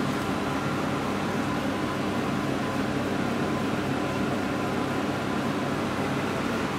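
A steady mechanical hum with hiss, unchanging throughout, with no distinct knocks or calls.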